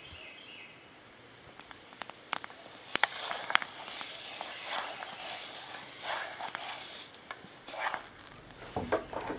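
Hard red winter wheat parching in a little oil in a metal camp pot, sizzling faintly with a few sharp pops. From about three seconds in, a wooden spoon stirs and scrapes the grains around the pot. The wheat is nearly done and ready to come off the heat.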